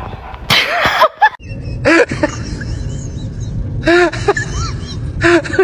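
A small dog giving short, rising-and-falling yips in little groups every second or two, over a steady background hiss. A brief noisy burst comes about half a second in.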